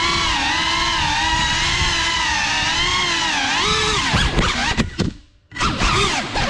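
The brushless motors and propellers of a GEPRC Cinelog 35, a ducted 3.5-inch cinewhoop FPV quad on 6S power, whining as they spin. The pitch rises and falls with the throttle. A little after halfway the sound cuts out almost completely for about half a second as the throttle is chopped, then the motors spin back up with a rising whine.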